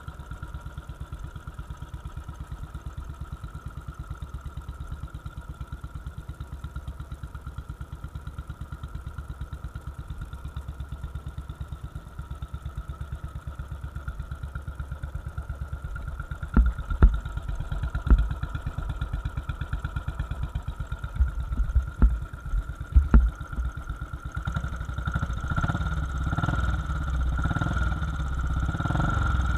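Royal Enfield Bullet 500's single-cylinder engine idling with a steady, even beat. Midway there are a few sharp loud knocks, and the engine sound gets louder in the last few seconds.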